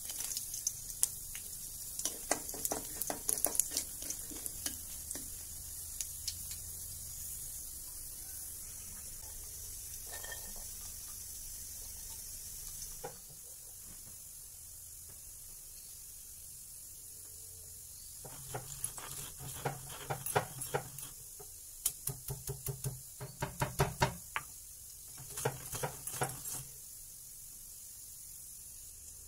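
Bori (lentil-and-ash-gourd dumplings) frying in hot oil, sizzling steadily, with a few clicks and scrapes of a spatula in the pan. The sizzle stops partway through. Later come three bursts of crunching and scraping as the crisp fried bori are crushed on a grinding stone.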